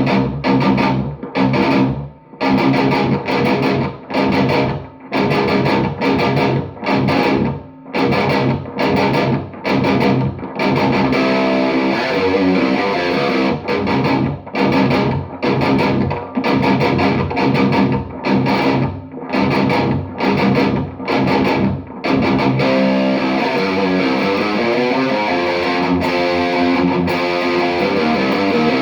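Distorted electric guitar played through a Mesa/Boogie Mark V:25 amplifier: short stop-start chords with brief gaps for the first ten seconds or so, then more continuous lines of moving single notes.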